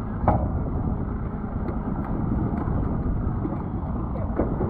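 Steady low rumble of a boat's Mercury outboard idling, mixed with wind on the microphone. A sharp knock comes about a quarter second in and a fainter one near the end.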